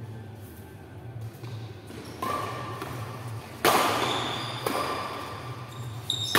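Badminton rackets striking a shuttlecock during a rally, three sharp hits with the middle one loudest, each echoing in a large hall over a steady low hum.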